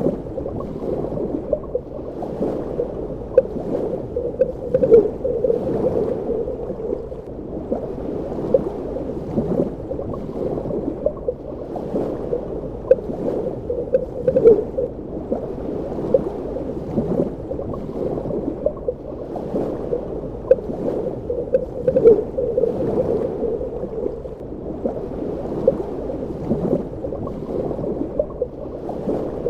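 Underwater ambience: a steady, muffled low wash of water with frequent small bubbling pops and gurgles.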